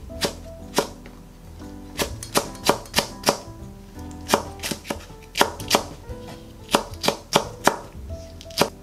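Chef's knife slicing green chili peppers into rounds on a wooden cutting board: sharp knocks of the blade striking the board, in short irregular runs of a few cuts each.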